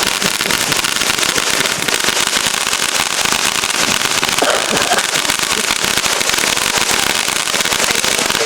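Mexican jumping bean ground fireworks crackling, a dense unbroken stream of rapid pops.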